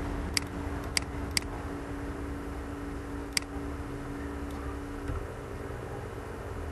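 Four sharp computer mouse clicks, three close together in the first second and a half and one more about three and a half seconds in, over a steady low electrical hum.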